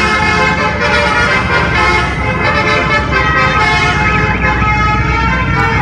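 Bus 'telolet' multi-tone horn sounding continuously, several tones at once, with a brief warble in the middle, over a steady low rumble.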